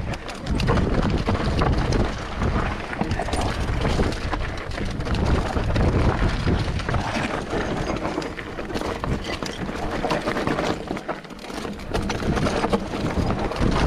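Mountain bike riding fast down a rough downhill trail: tyres on loose rock, with the bike rattling in many small irregular knocks over a constant rumble of wind on the microphone.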